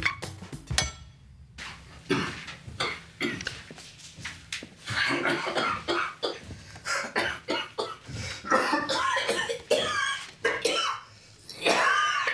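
A man coughing in a long, repeated fit, the coughs coming in rapid clusters.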